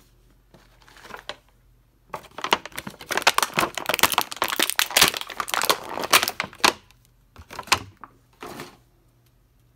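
Thin clear plastic bag crinkling as an action figure is pulled out of it: a brief rustle, then a dense run of crackles lasting about four and a half seconds, then two short rustles near the end.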